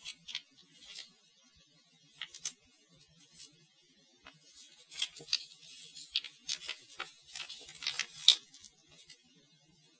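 Paper pages of a model-kit instruction booklet rustling and crinkling as they are handled and turned, in scattered short crackles that come thickest in the second half.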